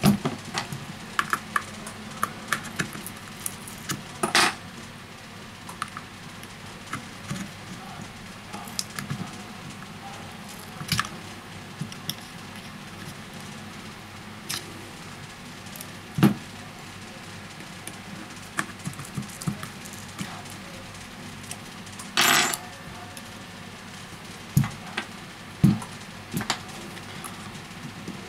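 Scattered small clicks and scrapes of a metal pry tool working under a glued-in smartphone battery, with a few short rasping scrapes where the tool drags along the battery's edge and adhesive.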